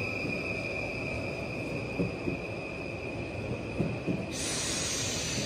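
NS passenger train pulling in along the platform: low rolling rumble with two pairs of clacks as the wheels cross rail joints, under a steady high-pitched squeal. About four seconds in, a loud hiss joins.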